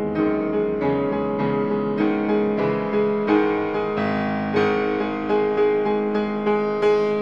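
Background piano music, a slow line of struck notes that ring and fade.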